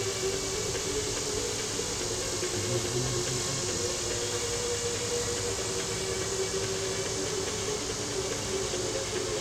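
A steady mechanical hum with an even hiss, like a motor running continuously, holding two constant tones with no change in pitch.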